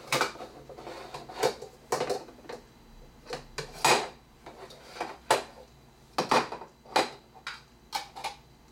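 Hollow plastic toy halves knocking and clacking against each other and against a plastic high-chair tray, as a string of irregular sharp knocks.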